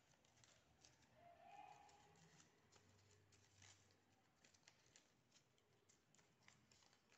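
Very faint crinkling of white paper with scattered small crackles, as a spiral-cut paper circle is rolled up tightly between the fingers.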